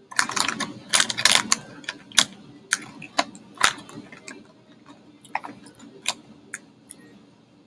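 Crisp crackling and sharp clicks from a crunchy fried Bhujia Sev snack and its packet being handled, dense for the first second and a half, then scattered single clicks.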